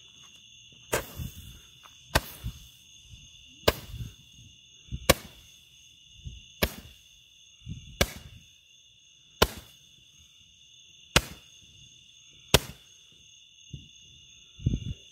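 Roman candle firing its shots: nine sharp pops about every second and a half, each sending up a burning star.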